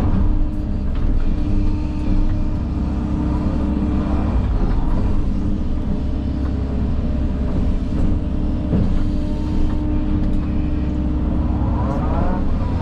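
Diesel engine of an earth-moving machine running steadily under load while it digs, with a whine that rises and falls a couple of times as the hydraulics work, and scattered light knocks.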